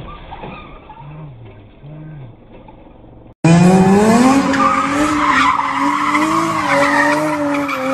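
Car drifting in circles, its engine held at high revs and its tyres squealing. This starts abruptly about a third of the way in, after quieter street traffic noise.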